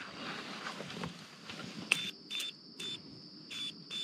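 Rustling of gear being handled inside a vehicle. About two seconds in a door latch clicks, and the vehicle's door-open chime beeps several times. A steady high insect trill comes in from outside once the door is open.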